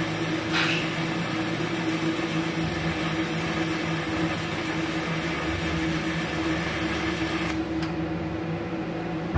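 Pulsed TIG welding arc hissing steadily, then cutting off about three-quarters of the way through with a click. A steady machine hum carries on underneath.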